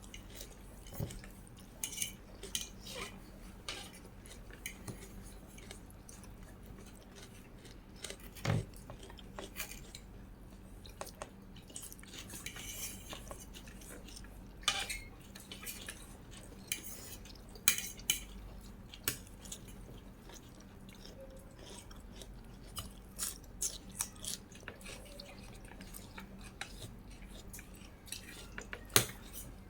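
Cutlery clinking and scraping against a dish in scattered sharp clicks while eating, with a few louder knocks, the loudest near the end.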